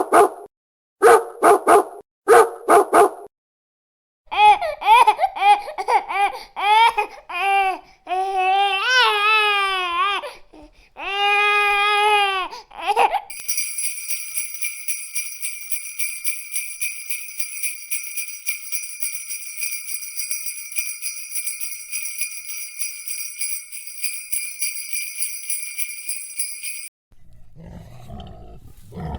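A string of sound effects: a dog barks five times, then comes a run of high squeaks or whines that rise and fall in pitch, then a bell jingles rapidly and steadily for about fourteen seconds and stops abruptly. A low rumbling sound begins near the end.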